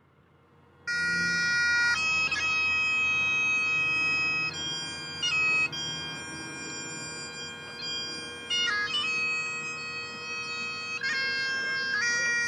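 Bagpipes starting up about a second in: steady drones under a melody of long held chanter notes.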